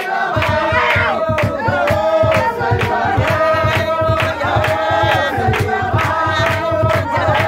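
A mixed group of men and women singing a chant-like song together, over steady rhythmic hand-claps and a low beat that sets in just after the start.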